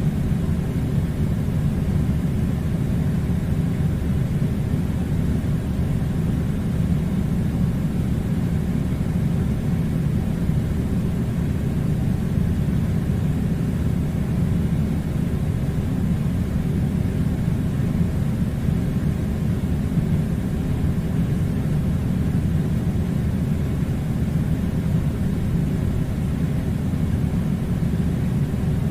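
Air conditioner running: a steady low rumbling noise that does not change.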